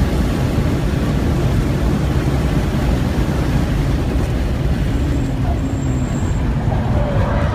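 Cabin sound of a 1998 BMW E36 M3 sedan at speed: its straight-six engine running hard, with loud wind and tyre noise, then braking hard for a corner from about 106 mph down to about 60 mph.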